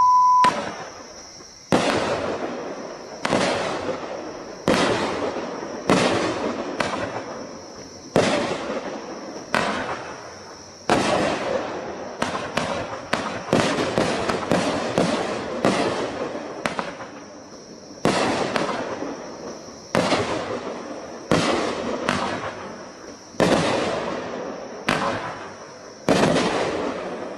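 A 24-shot consumer firework cake (T-Sky Midnight Champagne, a 200-gram angled cake) firing shot after shot, each a sharp bang with a fading tail. The shots come about one every one to two seconds, with a quicker run in the middle. A short electronic beep sounds at the very start.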